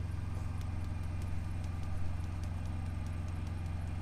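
Steady low hum of a truck's idling engine, with a few faint light clicks and rustles as salt is poured from a jar into a bowl of spices.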